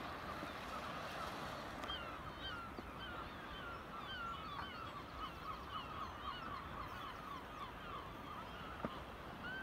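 A colony of seabirds calling from the sea cliffs: many short calls overlapping, several a second. A single knock near the end.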